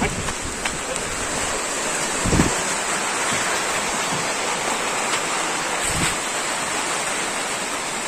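Steady rain falling, an even hiss, with two brief low thumps about two and six seconds in.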